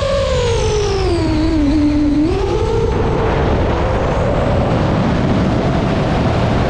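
DJI FPV quadcopter's motors and propellers whining over wind rush, heard through the GoPro mounted on the drone. The pitch sinks as throttle comes off, bottoms out about two seconds in, then climbs back and holds steady.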